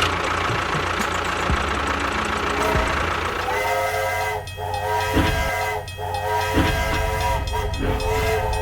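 A hissing rumble with a steady low hum, then a multi-note horn or whistle sounding in four blasts of about a second each from the middle on.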